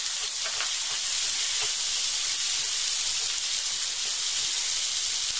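Chopped ginger, garlic and green chilli sizzling in hot oil and butter in a frying pan, with Schezwan chutney just stirred in: a steady, even hiss.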